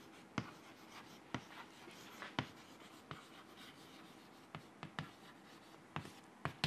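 Chalk writing on a chalkboard: faint, irregular taps and short scrapes of the chalk as words are written.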